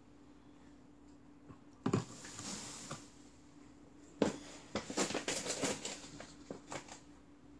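Sugar being handled with a china bowl: a knock about two seconds in followed by a brief hiss of sliding grains, then another knock a little past four seconds and a run of small crunching rustles.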